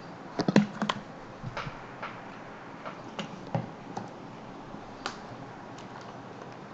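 A few faint, sharp clicks and ticks, a quick cluster in the first second and single ones spread out after, over a steady low hiss.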